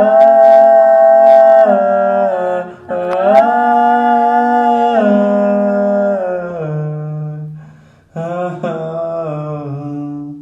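A cappella vocal harmony: several voices hum wordless held chords that shift every second or two. The chords break off briefly about three seconds in and again about eight seconds in.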